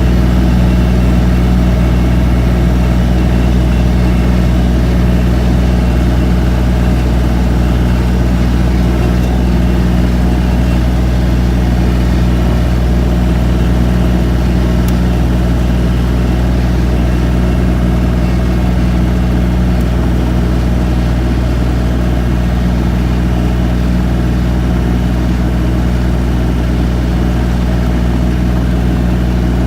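Skid loader engine running steadily at a constant speed, a loud, even low hum with no revving or change in pitch.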